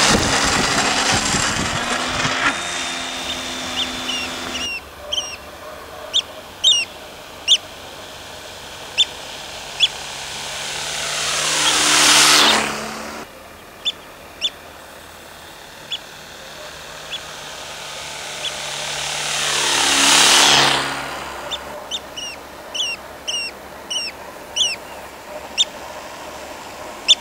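Electric motor and propeller of a radio-controlled Cessna 182 model plane whining at high throttle on the takeoff run at the start, then passing twice in low flybys, each a swelling whine that drops in pitch as it goes by. Short bird chirps are heard between the passes.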